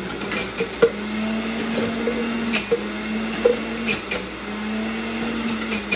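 Cheap electric juicer running as apple and ginger pieces are pushed down its feed chute: a loud, steady motor hum under a grinding noise, with several sharp clicks and knocks.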